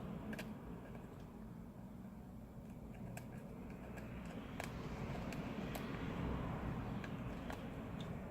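Faint, scattered clicks and taps of a small flat screwdriver working on a phone's frame to clear old adhesive, about ten in all and irregularly spaced, over a low steady background rumble.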